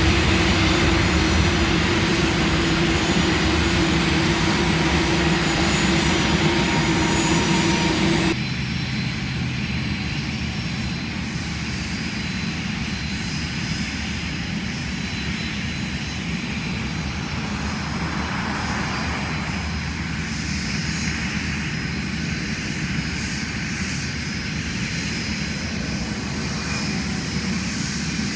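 Small business jets' turbofan engines running at an airfield, a loud steady drone with a low hum. About eight seconds in it drops abruptly to quieter, more distant jet noise as a business jet comes in low on approach.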